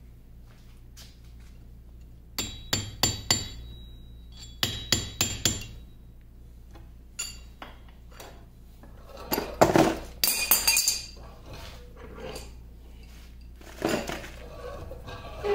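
Sharp metallic taps and clinks from work on a lathe's cast-iron compound assembly clamped in a vise: two quick runs of about four ringing taps, then a louder clatter of metal parts near the middle, and a few more knocks near the end.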